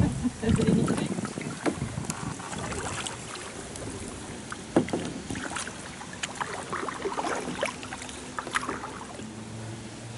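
Kayak paddles dipping into river water: irregular splashes and drips from the paddle blades, with one sharper splash about five seconds in.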